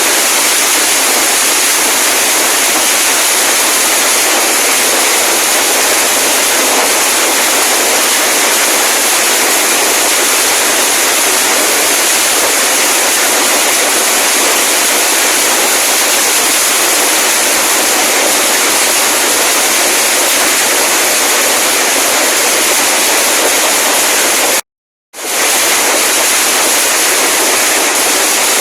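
A long string of firecrackers going off nonstop as a loud, dense crackle. It cuts out completely for about half a second near the end, then carries on.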